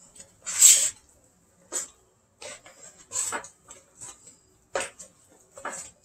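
Hands squeezing and mixing wet bread dough in a mixing bowl, making irregular short bursts of sound, the loudest about half a second in.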